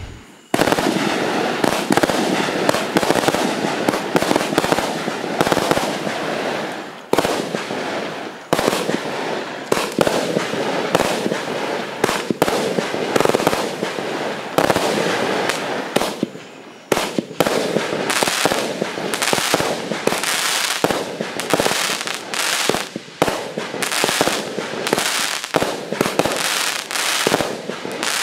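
Lesli Red Label Kruitbuffel consumer fireworks cake firing: a dense, continuous run of shots and bursts, with a few brief pauses.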